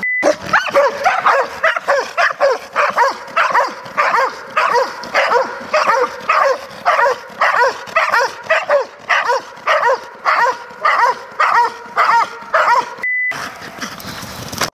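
Belgian Malinois protection dogs barking in a steady, rapid run, about two barks a second, with one brief break near the end.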